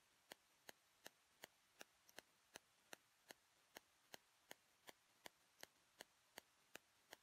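Near silence with a faint, even ticking, nearly three ticks a second.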